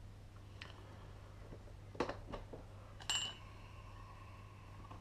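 Airsoft gearbox parts and tools handled on a workbench: a knock about two seconds in followed by two small clicks, then a sharp clink about a second later that rings on briefly, over a steady low hum.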